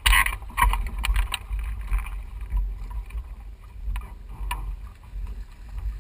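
Wind rumbling on the microphone of a camera mounted on a small beached catamaran. In the first second and a half there is a cluster of sharp knocks and splashes as someone steps off the hull into shallow water, and a few lighter knocks follow later.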